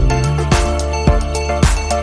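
Background music with a steady beat, a drum hit about twice a second.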